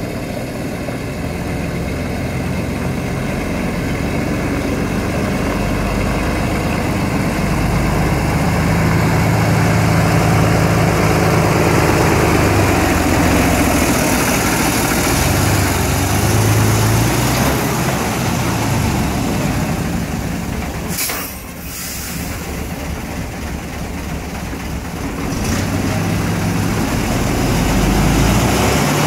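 Diesel engine of an old MAN 19.240 4x4 truck running, growing louder over the first ten seconds or so, then a steady low engine hum. A brief sharp noise about two thirds through.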